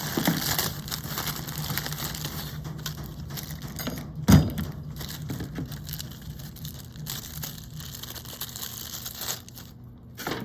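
Crinkling and rustling of plastic packaging as new washing-machine clutch parts are unwrapped and handled, with one sharp knock about four seconds in.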